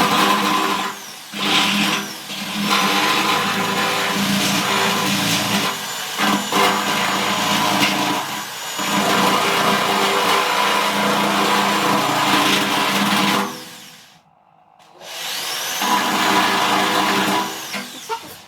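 Handheld electric power tool running in long stretches, its motor slowing briefly now and then. It stops about fourteen seconds in and spins back up a second or so later.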